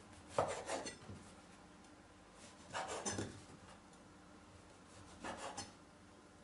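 A large kitchen knife sawing the crusts off a slice of toast bread against a wooden cutting board, in three short cuts about two and a half seconds apart.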